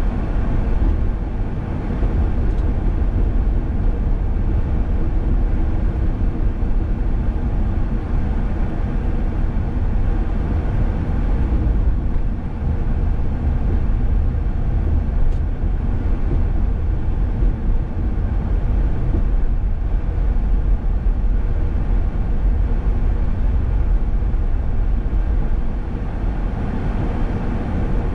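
Steady low rumble of a car driving along a highway: road and wind noise.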